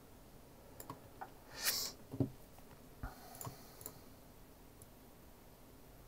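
Scattered computer mouse clicks, about half a dozen short, sharp ones, with a brief soft hiss about a second and a half in.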